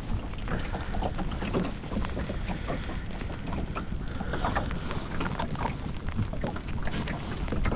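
Wind buffeting the microphone and choppy water lapping against a small boat's hull, with scattered small knocks and taps.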